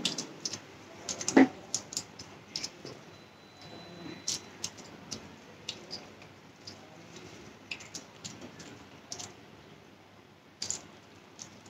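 Close-miked eating sounds: scattered light clicks and smacks of chewing and of food being handled, with one louder click about a second and a half in.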